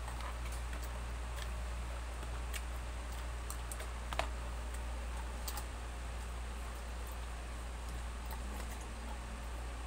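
Scattered light clicks and taps of a plastic spoon and fork against a takeout food box, with one sharper click about four seconds in, over a steady low hum.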